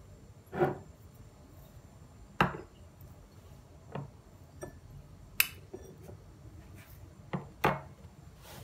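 A metal spoon knocking and scraping against small glass bowls while ingredients, among them butter, are spooned into a bowl of chopped parsley. There are about six separate clinks, two of them close together near the end.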